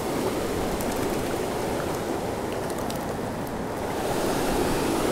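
Steady rush of flowing river water, rising a little near the end.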